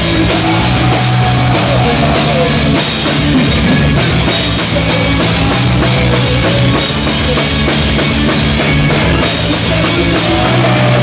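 A rock band playing live at full volume: a drum kit beating a steady, fast rhythm under electric guitar and bass, with a singer's voice over the top.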